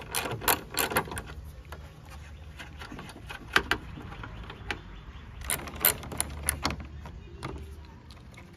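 Socket ratchet clicking in short runs of rapid clicks while undoing 10 mm bolts: one run at the start, a brief one about three and a half seconds in, and a longer one from about five and a half to seven seconds.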